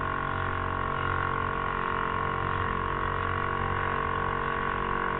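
Small outboard motor running at a steady throttle, a constant hum of several fixed tones with no change in pitch.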